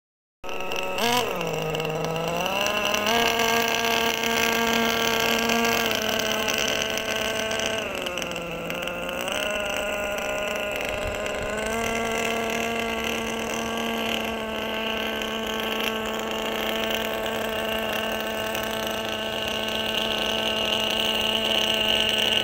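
Small engine of a radio-controlled model barge running on the water, its pitch dipping and rising again twice, about a second in and again near the middle, as the throttle is eased off and opened, otherwise holding a steady speed.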